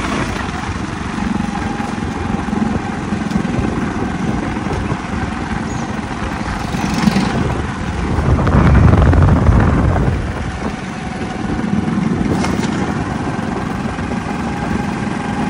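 Motorcycle engine running steadily while riding over a rough, muddy road, with wind rumble on the microphone; the noise swells louder for a couple of seconds midway.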